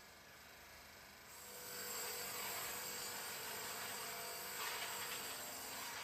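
Motor-driven abrasive wheel of a homemade pipe rust-removal machine scrubbing a square steel pipe fed under it on rollers: a steady rubbing hiss with a faint motor hum, starting about a second and a half in.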